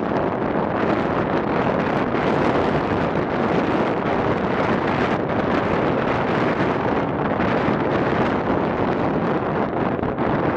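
Wind buffeting the camera's microphone: a loud, steady rushing noise.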